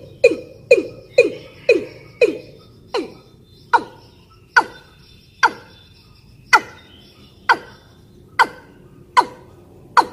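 Female watercock (ayam-ayaman) in breeding condition calling: a series of sharp, downward-sweeping notes, about two a second at first, slowing to about one a second after a couple of seconds. This is the call used as a lure to draw in males.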